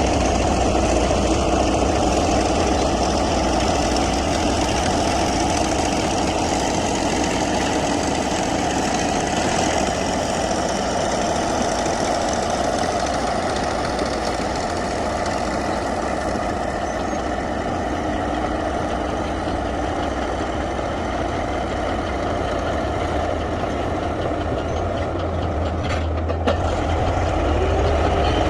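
Komatsu D155A crawler bulldozer's diesel engine running steadily.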